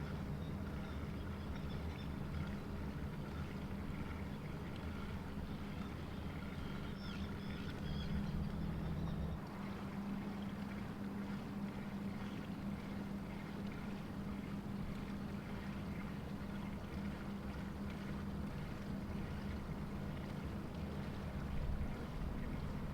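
Construction machinery's diesel engine running steadily, a low, even drone, with a brief high chirp about seven seconds in.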